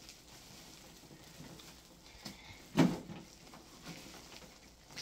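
A single dull knock about three seconds in, amid faint handling clicks and rustles, as the plastic CD/cassette stereo unit is handled on the floor.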